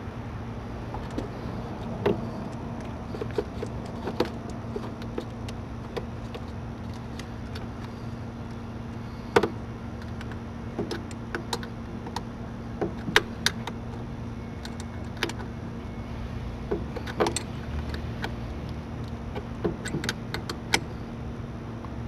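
Scattered metallic clicks and clinks of a wrench tightening the red positive cable terminal onto a battery post, a few of them sharp, over a steady low hum.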